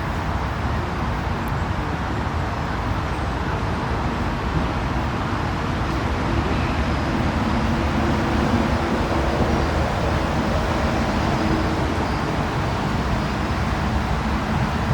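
Steady city traffic noise: a continuous rumble of road traffic, with one vehicle's engine hum standing out a little more for several seconds in the middle.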